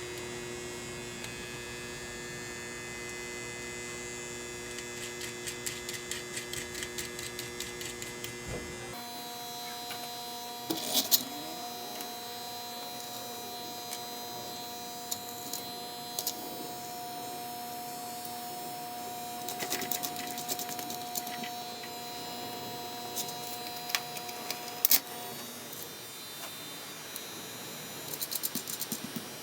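Transformer humming steadily, its loose core laminations buzzing, with small metal ticks and clinks as screws and bolts are worked into it. About nine seconds in the hum cuts off, leaving faint steady tones and occasional metallic clinks.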